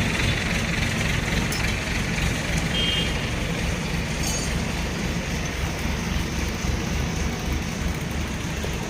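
A heavy engine running steadily at idle, a low, evenly pulsing rumble.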